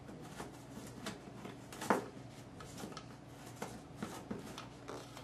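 Faint rustling and light taps as a camera cable is pushed through a hole in a drop-ceiling tile and the tile is handled, with one sharper tap about two seconds in.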